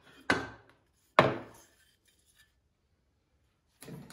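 Two sharp wood-on-wood knocks about a second apart, as a wooden workpiece and plywood jig are handled and set on the workbench, followed by a light handling sound near the end.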